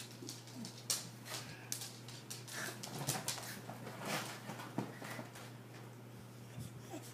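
A small dog and a cat play-fighting on a fabric couch: quick scuffing and pattering of paws and claws on the upholstery, with a few short, faint whimpers.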